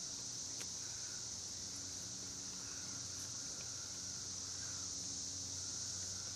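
Steady high-pitched insect chorus droning without a break, with a few faint clicks.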